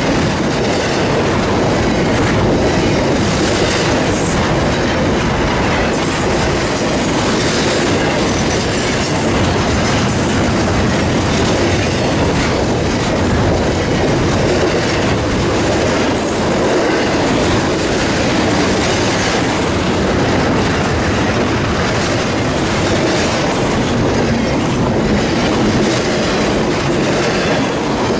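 Double-stack intermodal freight train's loaded well cars rolling past close by: a loud, steady rattle of steel wheels on the rail, with clicks at intervals.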